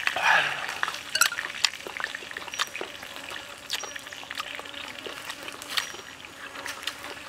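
Close-up eating sounds: irregular wet clicks and smacks of grilled chicken wing meat being torn apart and dipped into chili sauce in a clay bowl, with mouth smacking while chewing.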